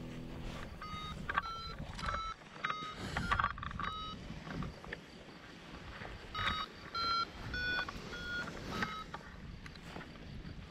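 Paragliding variometer giving a series of short electronic beeps that shift slightly in pitch from beep to beep. They come in two irregular clusters, one in the first few seconds and another from about the middle to near the end, over low rustling of handling and wind on the microphone.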